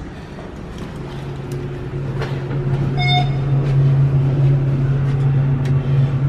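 Elevator cab running with a steady low hum that comes in about a second in and grows louder, with one short electronic beep about three seconds in.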